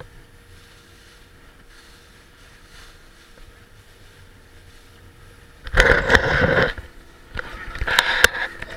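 Noise aboard a boat under way: a quiet, steady background, then loud bursts of rushing noise with sharp knocks from about six seconds in, repeating near the end.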